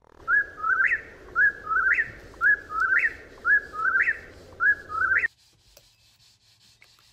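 Eastern whip-poor-will sound effect: the bird's three-note 'whip-poor-will' call five times in quick succession, the last note of each sweeping sharply upward. It cuts off suddenly about five seconds in, leaving only faint rubbing.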